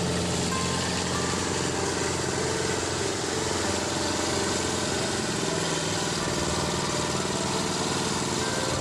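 Small engine of a boat-hulled floating paddy tiller running steadily.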